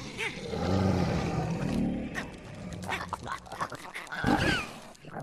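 Film dragon vocal effects for a Night Fury: a low rumbling growl for about two seconds, then short warbling calls that rise and fall in pitch near the end.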